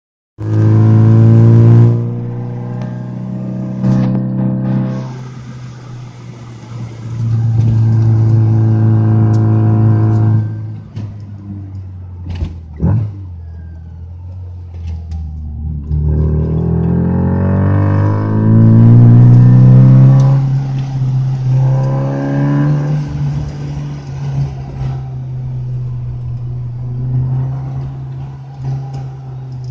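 Rover Mini Cooper 1.3i's 1275 cc A-series four-cylinder engine, heard from inside the cabin, accelerating hard: the revs climb and drop off several times, loudest near the start, around eight seconds and around nineteen seconds. A few sharp knocks come about twelve seconds in.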